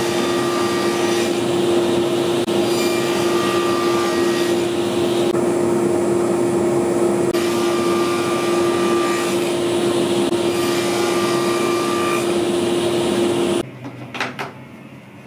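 Table saw running while plywood is fed through the blade along the rip fence: a steady hum with a higher whine that comes and goes as the blade cuts. It is switched off near the end, and a few clicks sound over the quieter run-down.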